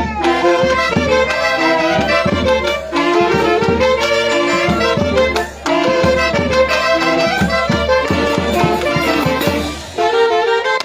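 Festive Santiago music played by an orchestra with wind instruments carrying the melody over a steady drum beat, with brief breaks in the phrase about halfway through and near the end.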